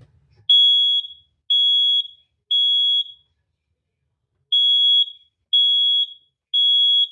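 Residential smoke alarm sounding under its test button, showing the alarm works. It gives a loud, high-pitched beep in the three-pulse evacuation pattern: three half-second beeps, a pause of about a second and a half, then three more.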